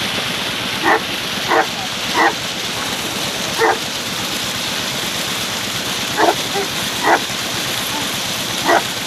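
A dog barking, seven short single barks at uneven intervals, over the steady rush of water running in an irrigation channel.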